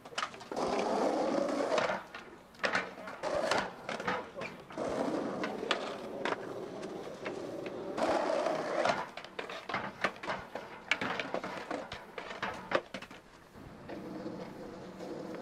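Skateboard wheels rolling on rough asphalt in stretches, with many sharp clacks of the board snapping and landing.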